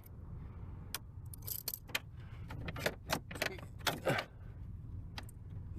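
Scattered clicks, clinks and rattles of hand tools and plastic interior trim as the console piece around a car's gear selector is worked loose, with a few short creaks, over a steady low rumble.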